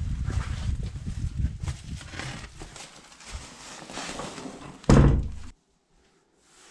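Footsteps and scuffing over loose rubble and wooden boards on a concrete bunker floor, with one loud thump about five seconds in.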